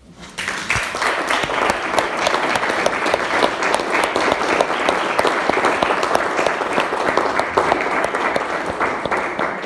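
A small seated audience applauding, a dense patter of many hands clapping that starts suddenly just after the speech ends and keeps up steadily.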